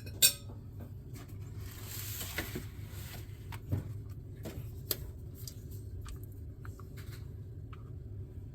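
A pastry brush dabbing and spreading egg wash over frozen biscuits on a baking sheet: a soft swishing with light clicks of the brush and bowl, and one sharp click just after the start, over a steady low hum.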